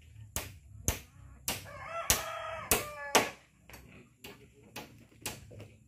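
Hammer blows on a wooden roof frame, about ten sharp strikes at roughly two a second. A rooster crows once about two seconds in, lasting about a second.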